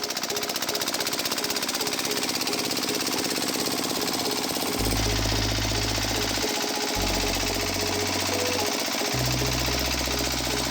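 A rapid, steady mechanical rattle, like a small motor-driven machine running, with background music whose bass notes come in about halfway through.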